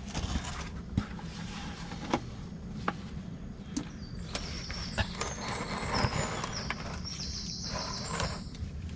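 Tractor transmission oil draining in a steady stream into a bucket, with occasional knocks from the bucket being handled. A high thin tone sounds over it from about halfway through until near the end.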